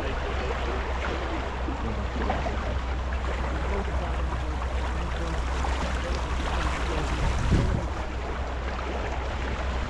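Wind buffeting the microphone and water rushing along the hull of a sailing yacht under way, a steady rushing with a low rumble, with one brief louder thump about seven and a half seconds in.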